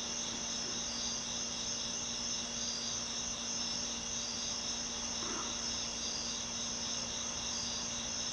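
Crickets chirping steadily in a continuous high pulsing trill over a steady low hum.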